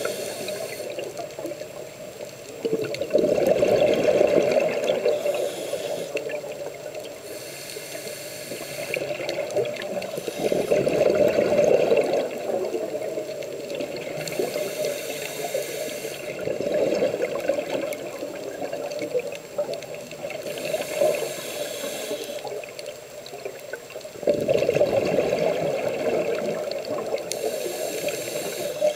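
Scuba diver's breathing through a regulator, heard underwater: a hiss on each inhale, then a louder rush of exhaust bubbles, about four breaths at roughly seven-second intervals.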